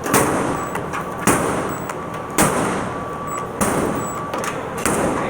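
Cordless reciprocating saw clunking each time the trigger is pulled, five sharp knocks about a second apart, each with a brief faint whine, as the saw jams instead of running.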